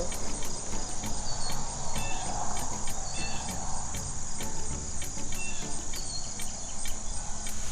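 Harp seal calls: short, scattered high chirps over a steady high-pitched buzz.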